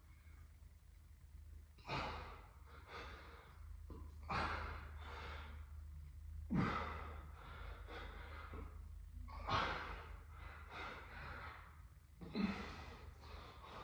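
A man exhaling hard through each rep of a back exercise set, five forceful breaths about every two and a half seconds.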